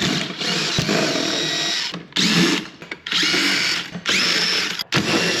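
A handheld power driver running in bursts against a stubborn fastener. One long run of about two seconds is followed by four short ones, and the motor's whine rises as each burst starts.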